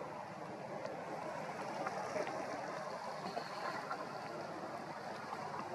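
Steady outdoor background noise, an even hiss with a few faint clicks; no distinct animal call stands out.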